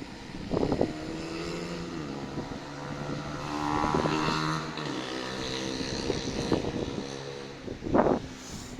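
An engine running steadily, its pitch stepping up and down a few times. Two short rustling thumps come through, one near the start and a louder one near the end.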